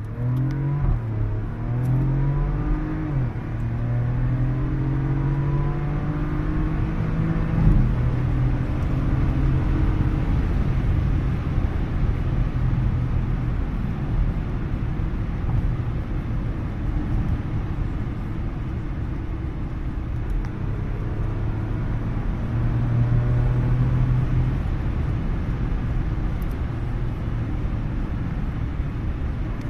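Porsche Macan Turbo's twin-turbo V6 heard from inside the cabin: the engine pulls with rising pitch in the first few seconds, then runs steadily at motorway speed in fourth gear under a constant rush of tyre and wind noise.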